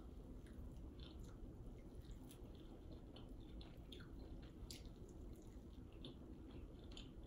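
Faint chewing and mouth noises of someone eating a bone-in chicken wing, with scattered small wet clicks and smacks.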